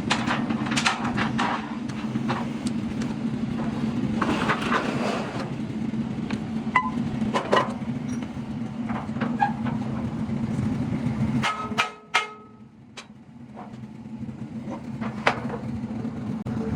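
Metal repair work: scattered metal knocks and clinks over a steady machine hum. The hum drops out briefly about twelve seconds in, then comes back.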